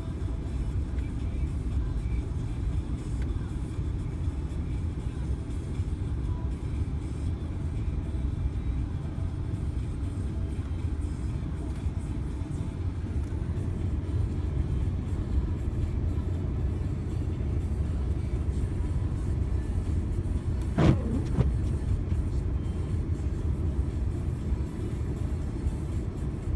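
Steady low rumble of a 2015 Ram pickup driving on snow-covered roads, heard from inside the cab, with one sharp knock about three-quarters of the way through.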